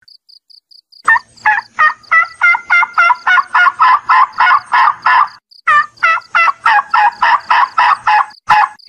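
Domestic turkey calling in long runs of evenly spaced yelps, about three a second, with a short break a little past the middle. A faint high chirping repeats steadily underneath.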